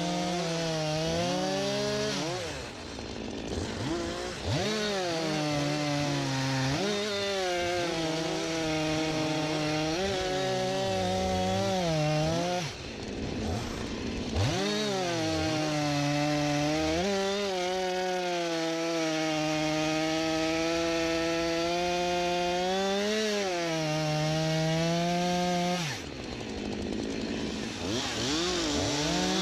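Two-stroke chainsaw cutting through wood at full throttle, its engine note sagging under load and recovering. It eases off briefly about three seconds in, again about thirteen seconds in, and near the end.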